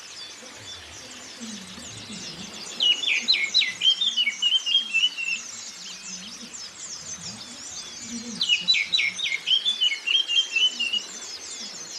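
Oriental magpie-robin song in two loud, varied phrases, about three seconds in and again near nine seconds in, over a constant high twittering of white-eyes.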